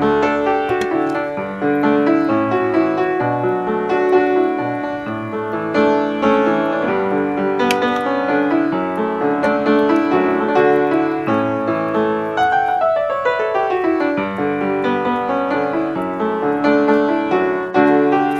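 Background piano music, with a quick falling run of notes about two-thirds of the way through.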